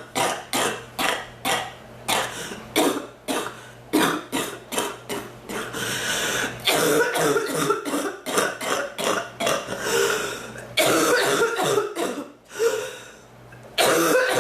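A woman coughing over and over in long fits, about two to three coughs a second, with a short lull near the end before one more loud cough.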